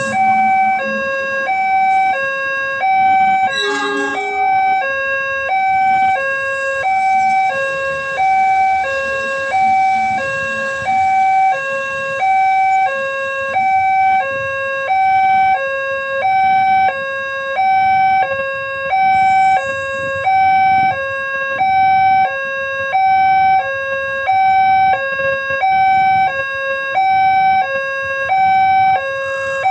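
Railway level-crossing gate warning siren, an electronic two-tone alarm alternating evenly between a low and a higher note, about one pair every 1.3 seconds, signalling an approaching train. A brief other sound cuts in about four seconds in.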